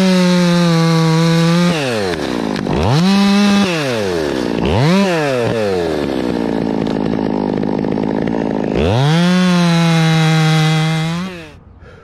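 Two-stroke top-handle chainsaw cutting limbs off a fir trunk, revved to full throttle in bursts. There are two bursts of one to two seconds, a short blip, a few seconds at a lower, rougher run, then a last long burst before it drops away near the end.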